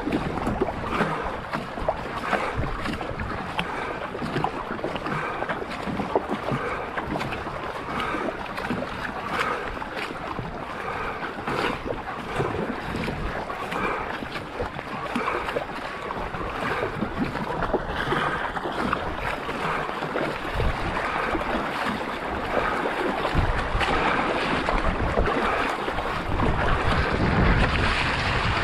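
Paddle strokes and water rushing and splashing along a racing canoe at race pace, with wind rumbling on the microphone, heavier in the last several seconds.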